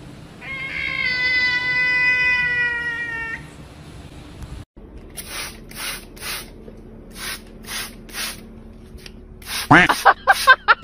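A grey cat gives one long meow, falling slightly in pitch. Then a hand spray bottle squirts about seven times in quick succession, and near the end a small dog yips several times in short bursts.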